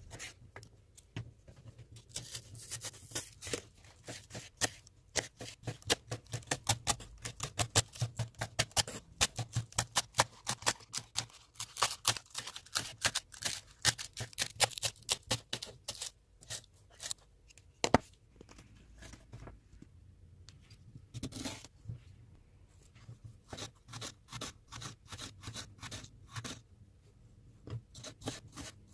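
Knife chopping food on a cutting board: a quick run of sharp taps, several a second, thinning out and getting quieter in the second half.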